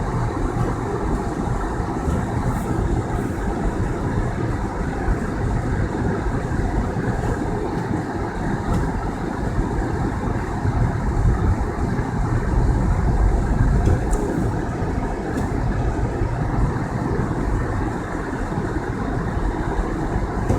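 Car driving on a snowy road: a steady rumble of engine and tyres, swelling a little louder about twelve to fourteen seconds in.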